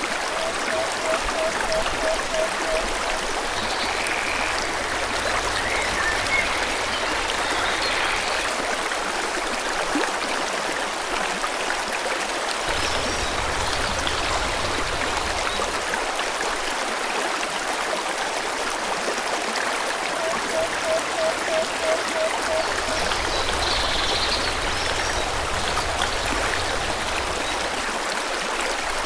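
Forest stream rushing steadily, with birds chirping faintly over the water. Twice, a low call of about eight quick, evenly spaced notes repeats.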